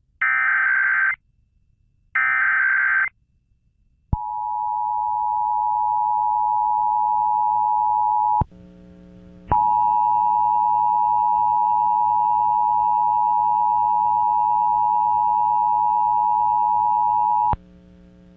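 Emergency Alert System Required Monthly Test: the last two of three SAME header data bursts, each a buzzy digital blast about a second long, then the EAS two-tone attention signal. The attention tone runs about four seconds, breaks off for about a second, and resumes for about eight seconds, with a low mains hum underneath.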